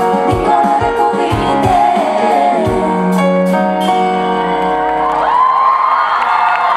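Live pop band ending a song: a male lead vocal holds the last notes over band accompaniment, with kick-drum beats until about three seconds in. The music then rings out and the crowd starts cheering and whooping near the end.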